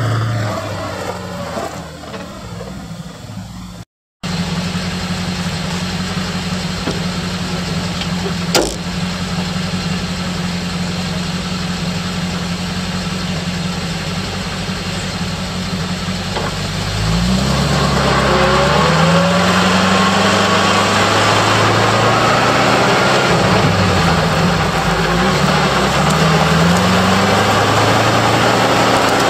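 The 392 V8 gas engine of a 1969 International Loadstar 1700 fire truck idling steadily, heard from under the truck beside the front axle, with one sharp knock about a third of the way in. A little over halfway through the truck pulls away: the engine pitch climbs and falls back several times as it goes up through the gears, and road noise builds.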